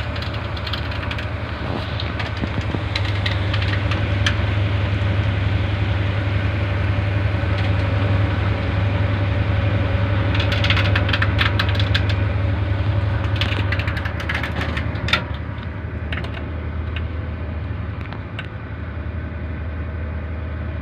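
Rain falling, a steady hiss over a constant low hum, with clusters of sharp clicks about ten and fourteen seconds in.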